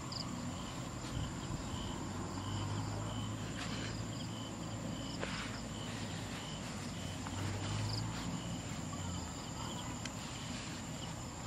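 Insects calling in the grass: a steady high whine with a short chirp repeating about twice a second. A low hum rises in the middle and fades near the end, with faint rustles and clicks from dry grass stalks being handled.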